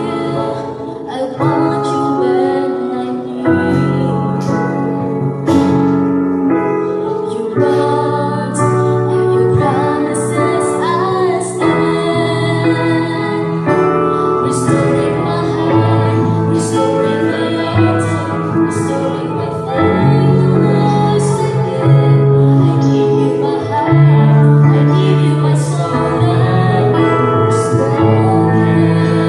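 A young woman and a young man singing a Christian worship song as a duet over a music accompaniment, with sustained notes.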